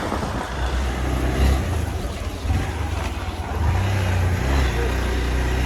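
Hero Xpulse 200's single-cylinder engine running as the motorcycle is ridden, its pitch rising and falling with the throttle.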